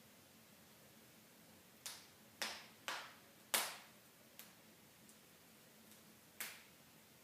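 Wood fire in a fireplace crackling: about six sharp pops at uneven spacing, the loudest about three and a half seconds in, over a faint steady hiss.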